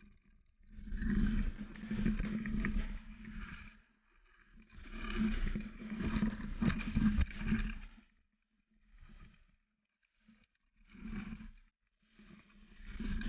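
Mountain bike ride heard through an action camera's microphone: wind rushing over the mic and tyres rolling on a dirt trail, coming in swells with a steady low hum and several short near-silent gaps.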